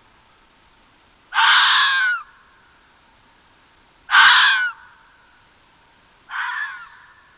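An animal calling three times, each call a loud, harsh cry of under a second, about two seconds apart.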